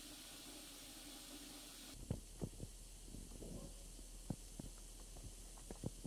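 Acid solution fizzing steadily as it eats the base metal of gold-plated connector pins, the liquid turning blue-green with dissolved copper. About two seconds in it cuts to a quieter background with scattered soft low pops and gurgles.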